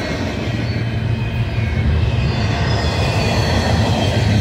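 Double-stack container well cars of a long freight train rolling past close by: a steady rumble of steel wheels on rail, with faint high-pitched wheel squeal over it.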